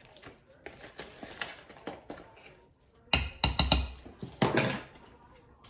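Metal measuring spoon scooping baking soda in a plastic zip bag, the bag rustling, then knocked sharply against the rim of the mixing bowl in two quick clusters of clinks past the middle.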